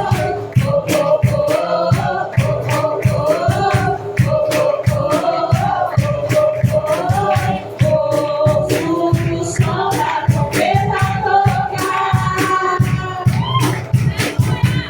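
Live worship band music with a steady driving drum beat and bass, and voices singing over it.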